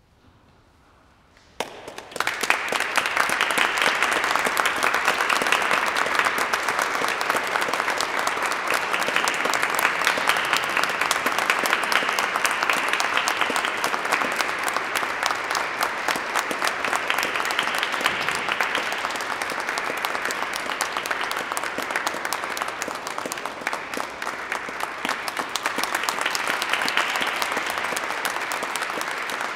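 Near silence, then about a second and a half in an audience suddenly breaks into applause that carries on steadily.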